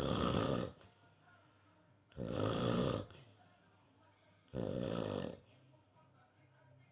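A person snoring: three short snores, about two and a half seconds apart, each under a second long.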